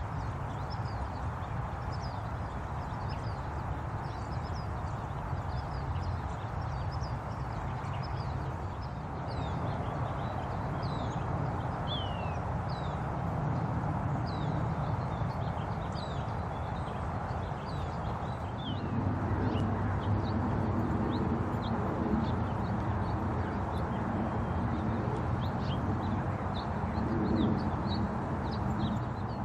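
Small birds chirping over and over, each chirp short and quickly falling in pitch, above a steady low rumble; a low hum joins about two-thirds of the way through.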